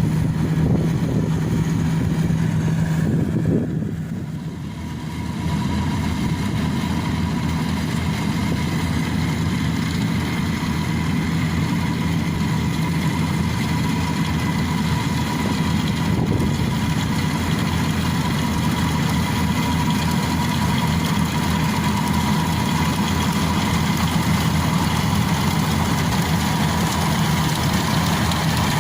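Yanmar AW70V combine harvester's diesel engine running steadily under working load. The sound dips briefly in loudness about four seconds in.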